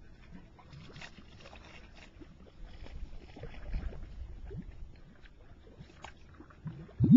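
Geothermal mud pot bubbling as gas bursts up through wet mud: a scatter of short gurgling plops, with one much louder plop near the end.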